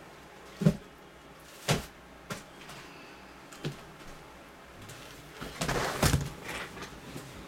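Several separate knocks and thuds, then a burst of handling noise and a thump about six seconds in as a shrink-wrapped box of baseball cards is set down on the table.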